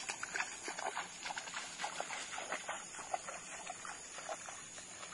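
Footsteps swishing through wet grass, with short, irregular animal calls mixed in.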